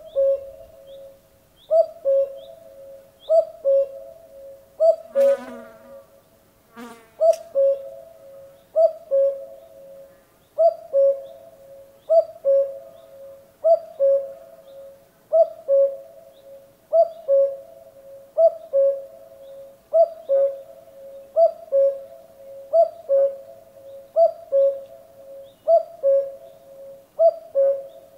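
Common cuckoo calling "cuck-oo": a clear two-note call, the second note lower than the first, repeated steadily about every one and a half seconds.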